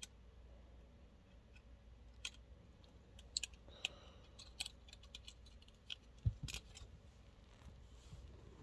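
Irregular small clicks and taps of objects being handled, a dozen or so sharp ones scattered through, with one dull thump about six seconds in, over a low steady hum.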